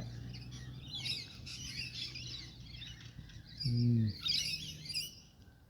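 A flock of parrots calling together, a dense jumble of high chattering and screeching calls that dies away near the end.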